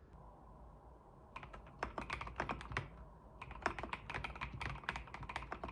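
Typing on an Mstone mechanical keyboard with 45 g milky switches: quick runs of key clicks that start about a second in, pause briefly in the middle, then resume.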